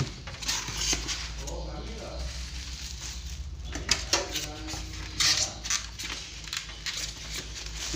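Hard objects clicking and clattering, with rustling, as a power tool is wrapped and packed back into its case, over a steady low hum.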